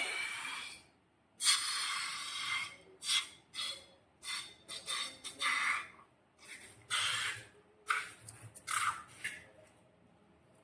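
Slime being squeezed and worked by hand, a string of short, wet squelches that stop near the end.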